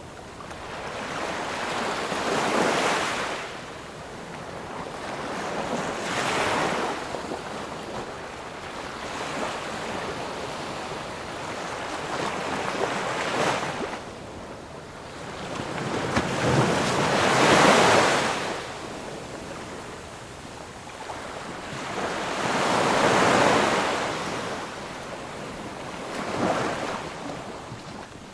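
Ocean waves breaking and washing on a shore, each swelling up and falling back every few seconds, the loudest one about two-thirds of the way through.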